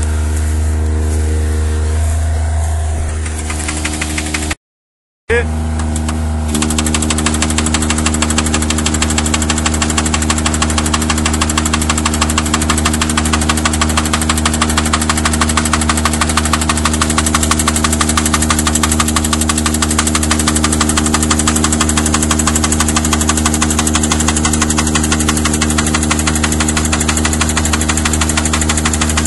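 Red forestry machine with a hydraulic boom running steadily, a low machine hum with steady tones. The sound cuts out for under a second about five seconds in, and about six seconds in a fast, even clatter and a high whine come in and hold.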